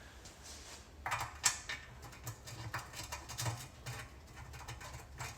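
Irregular small metallic clicks and rattles, starting about a second in, as the transmission pan's small bolts are handled and started into the pan, over a faint steady low hum.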